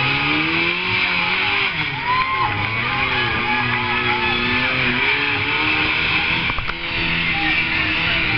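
Rock-crawling buggy's engine revving in repeated rising and falling throttle bursts as it climbs over rocks, with guitar music also heard.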